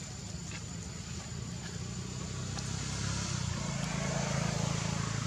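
An engine running steadily nearby with a low drone, growing louder about three seconds in.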